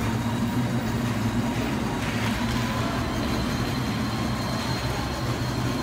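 Battery-powered ride-on toy jeep driving on a tiled floor: a steady whir from its small electric gear motors with the rumble of its hard plastic wheels.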